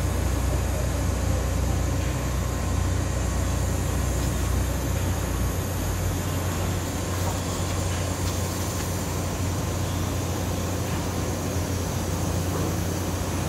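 Steady shipyard background noise at a ship repair drydock: a deep rumble under a constant hiss, the lowest part of the rumble easing about five seconds in.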